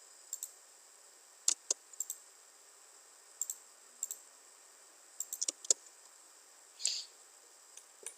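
Computer mouse and keyboard clicks, about a dozen sharp separate clicks at uneven intervals with a quick cluster around the middle, as lines are trimmed in a CAD program. One softer, longer sound near the end.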